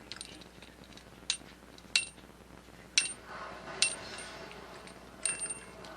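An African grey parrot making about five sharp clicks, irregularly spaced, each with a brief metallic-sounding ring.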